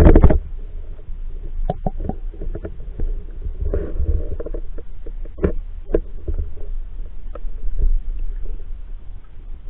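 Muffled low rumble of water moving against a submerged action camera's waterproof housing. A loud bump comes right at the start, then scattered knocks and clicks as the case is jostled.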